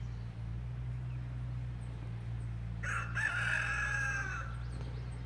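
A rooster crows once, a call of about a second and a half starting about three seconds in, over a steady low hum.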